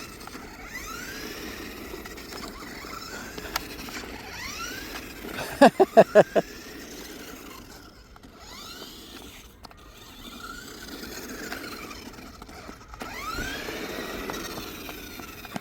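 Toy remote-control car's small electric motor whining up and down in pitch over and over as it speeds up and slows down. About six seconds in come four short, loud tones that each fall in pitch.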